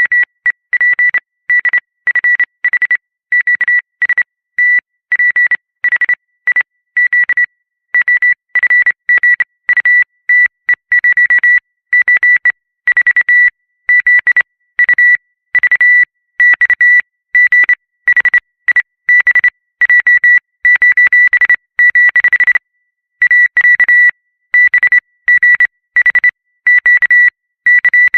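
High-pitched oscillator tapping out Morse code: a steady tone keyed on and off in rapid short and long beeps. It is the signal of the vinyl antennae sensing an enemy's presence.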